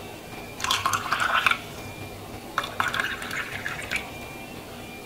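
Water with tamarind and palm sugar splashing and sloshing in a glass, in two short bursts about two seconds apart.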